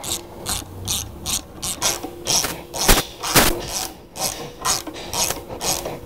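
Hand ratchet wrench clicking in quick back-and-forth strokes, about two or three a second, tightening down the bolts on a backhoe attachment's quick-coupler wedge block; two sharper metallic knocks stand out about three seconds in.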